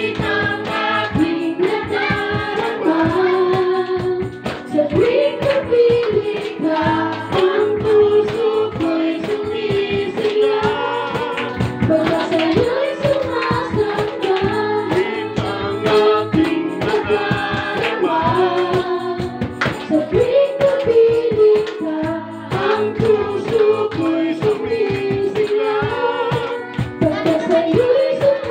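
A worship song sung by a group of singers over band accompaniment, with a steady beat.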